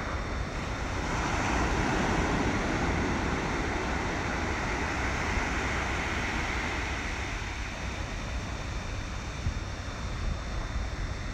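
Outdoor ambient noise: wind rumbling on the microphone over a steady rushing haze that swells about a second in and eases off after about seven seconds, with a few small knocks near the end.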